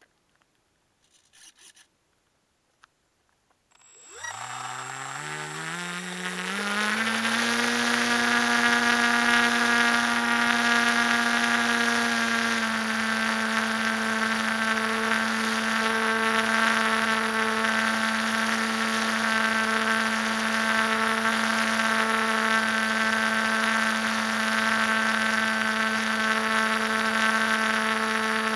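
Model glider's electric motor and propeller spinning up from rest about four seconds in, the whine rising in pitch over a few seconds to a steady drone as the plane takes off and climbs. Heard from a camera on board the plane, with a hiss of air under the drone.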